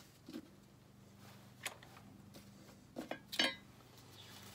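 Light metallic clicks and clinks of engine parts being handled on a workbench: a single click near the start, another after about a second and a half, and a cluster of sharper clinks about three seconds in. A faint steady low hum lies underneath.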